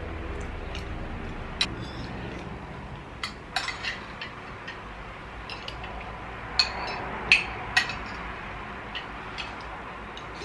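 Cutlery clinking against plates and a soup bowl at the table, single sharp clinks at irregular intervals, the loudest a little past halfway, over a steady low hum.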